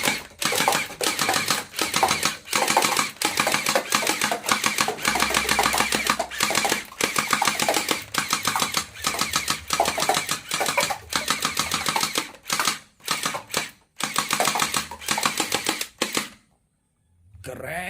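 Toy gun firing in long rapid-fire bursts: a fast, dense mechanical clatter broken by brief pauses. It stops about 16 seconds in.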